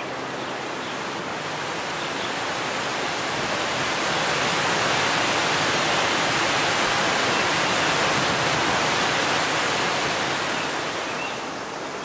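Rushing water of river rapids and a small waterfall, a steady dense rush that swells louder through the middle and eases off near the end.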